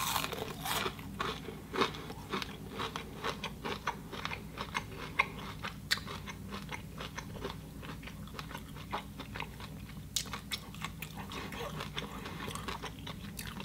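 A person chewing a mouthful of crispy pan-fried scrapple, with many small crunches, most frequent in the first half.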